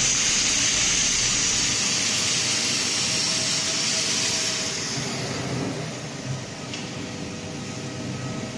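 Workshop machinery running: a loud, steady whirring hiss with a low hum under it. The hiss fades down about five seconds in, leaving a quieter hum.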